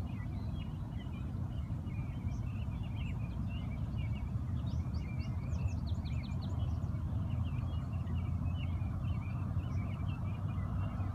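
Several birds chirping and singing over a steady low rumble, with a quick run of high, rapid notes about five to six and a half seconds in.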